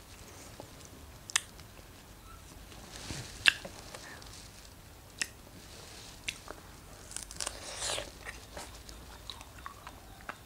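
Fresh strawberries being bitten into and chewed: scattered sharp clicks of bites, the loudest about three and a half seconds in, and a longer spell of chewing near the end.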